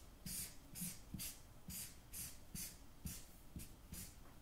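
Marker drawing on a large sheet of paper: short, scratchy strokes about two a second.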